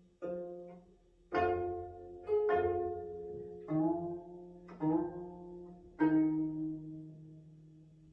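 Gayageum being plucked: a slow phrase of single notes, each struck sharply and left to ring and fade, about eight notes in all with the last held longest.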